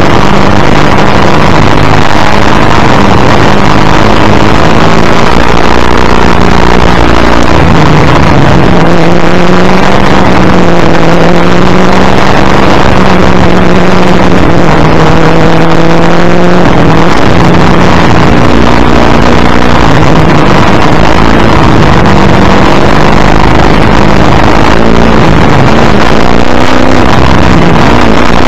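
Ford Falcon XD Group C touring car's V8 engine racing flat out, its revs climbing and falling again and again through gear changes and braking. A loud, steady rush of wind and road noise runs under it.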